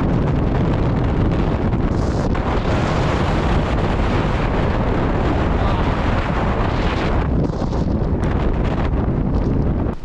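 Strong wind buffeting the camera's microphone: a loud, continuous rumble and rush of gusting wind.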